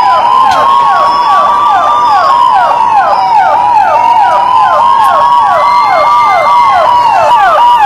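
Emergency vehicle sirens: a fast, repeating falling yelp, about four to five sweeps a second, over a slower wail that drifts up and down in pitch.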